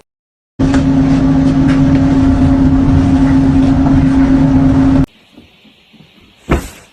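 A steady motor hum at one constant pitch, starting about half a second in and cutting off suddenly after about four and a half seconds. A quieter stretch follows, with a single thump near the end.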